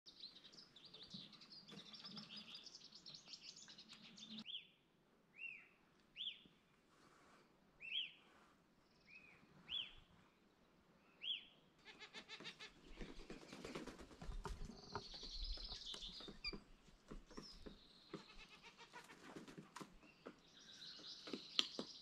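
Faint forest birdsong. First dense high chirping, then a single bird repeating a short arched call about every second and a half, then busier chirping and twittering from several birds from about halfway, with some soft knocks and rustles underneath.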